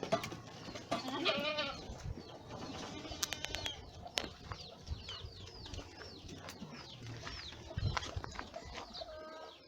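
Boer goats bleating, with one wavering bleat about a second in, while small birds chirp rapidly through the middle stretch. A few soft knocks and thumps are heard as the goats move about.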